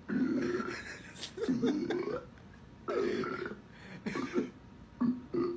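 A person burping over and over, about five burps in a row, each under a second long with short pauses between.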